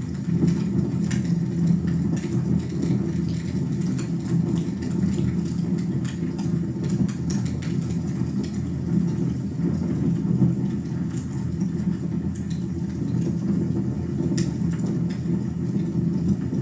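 Fire burning in a fireplace: a steady low rumble with scattered faint crackles.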